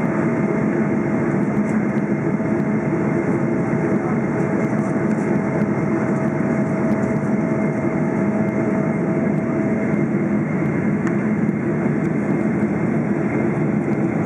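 Steady cabin roar of a Boeing 777-300ER in flight, heard from a window seat: the noise of its GE90 engines and the rushing air. A faint steady tone underneath stops about ten seconds in.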